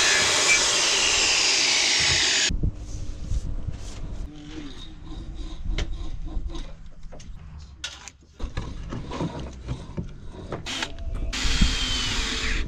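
Deck-repair work in quick cuts: a loud steady hiss for the first two and a half seconds, then scattered knocks, taps and scrapes of wooden deck boards and hand tools, and near the end a cordless drill driving a screw into a new pine deck board.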